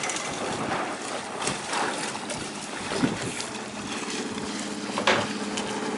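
Wind buffeting the microphone with water noise around a boat on open water. A steady low hum comes in about two-thirds of the way through, with a single knock shortly after.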